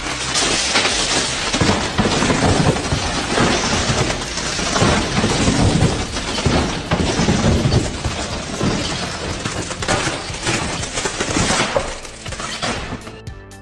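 Loud, continuous crashing and cracking of wood being broken up by heavy machinery, with many heavy knocks, dying down near the end.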